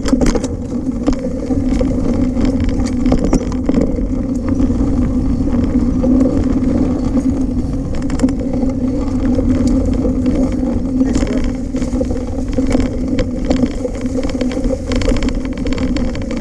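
Full-suspension 29er mountain bike rolling over a dirt trail: a steady low hum of tyres on the ground, with frequent clicks and rattles as the bike goes over bumps.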